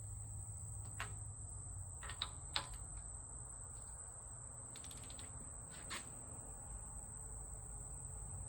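Scattered sharp metallic clicks and taps of hand tools, four or five distinct ones with the loudest two about two and a half seconds in, over a steady high-pitched whine and a low hum.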